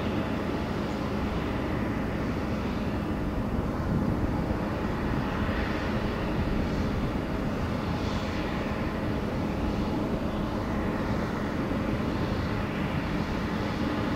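Steady, unbroken distant engine drone with a constant low hum.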